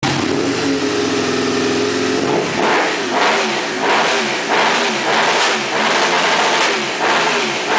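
Motorcycle engine running through an Aprilia Tuono exhaust silencer: it idles steadily, then from about two and a half seconds in the throttle is blipped over and over, about one to two quick revs a second.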